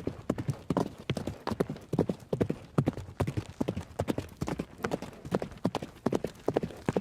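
Horse hooves galloping, a fast run of clip-clop beats several times a second in uneven groups.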